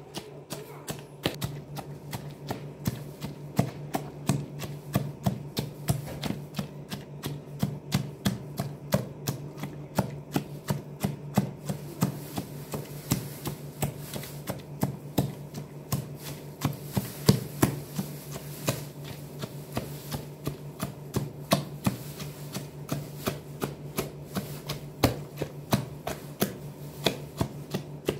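A pestle pounding pomegranate arils in a plastic basin, crushing them to release the juice for pomegranate paste: a steady run of wet, crunching strokes, about three a second. A steady low hum runs underneath.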